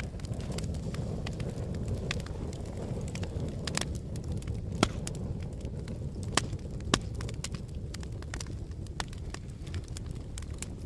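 Wood fire crackling, with irregular sharp pops, the loudest about five seconds in, over a low, steady rush of blowing wind.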